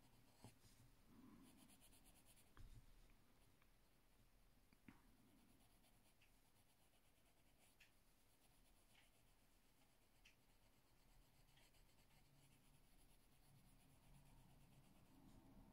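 Faint scratching of a coloured pencil on paper, with a few soft ticks.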